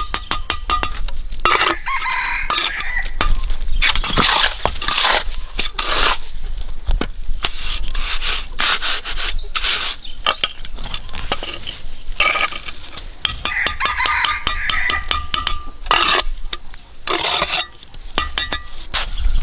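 Backyard chickens: a rooster crowing about two seconds in and again around fourteen seconds, among many short clicks and scrapes.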